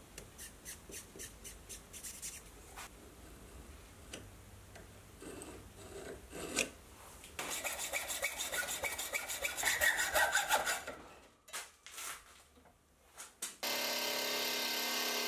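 A marker rubbing in faint regular strokes over a steel block, then a hand hacksaw sawing through the low-carbon steel bar held in a vise, the loudest part. Near the end the Sieg X2.7L milling machine starts running with a steady hum.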